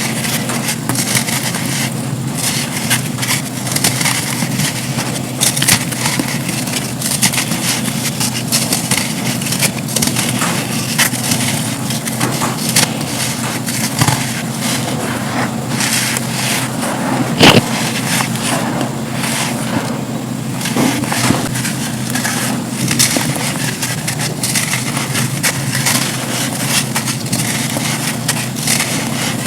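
Dry black sand slabs crumbling and being crushed, a dense, continuous run of crisp crackles with one louder crack a little past halfway.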